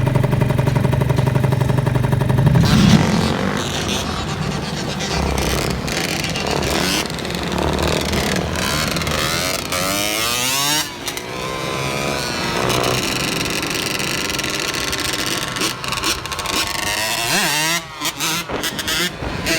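Genuine Roughhouse 50 scooter's 50cc two-stroke engine running through a LeoVince TT exhaust pipe. It idles steadily for about three seconds, then rises and falls in pitch several times as it is revved or ridden.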